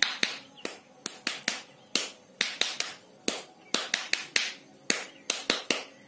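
Rose-ringed parakeet's feet stamping on a wooden ledge as it dances: a run of sharp taps, several a second and often in quick pairs, at an uneven pace.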